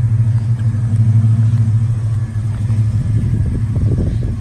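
A car engine idling steadily, a low, even hum, with a brief rougher rattle about three seconds in.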